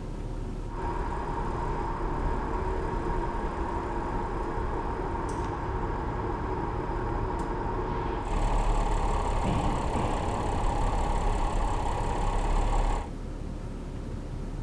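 An Audi's engine running steadily at low speed as the car slowly parks itself, with a constant whine over the hum. The sound gets louder and deeper about eight seconds in and drops back near the end, and two faint clicks come in between.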